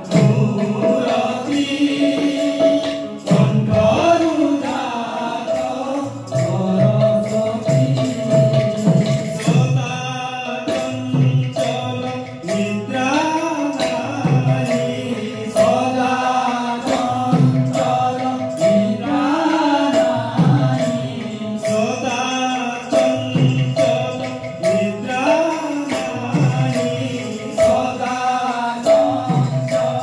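Odia devotional kirtan music: voices singing a devotional song over a held steady note, with frequent strikes of hand percussion keeping the rhythm.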